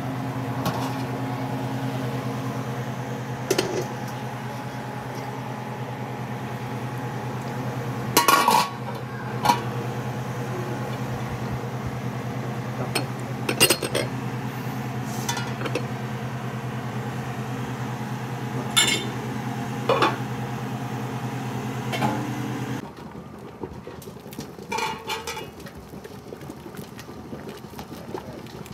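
Dishes and a pot or lid clinking and knocking several times, over a steady low hum from a kitchen appliance that cuts off suddenly near the end.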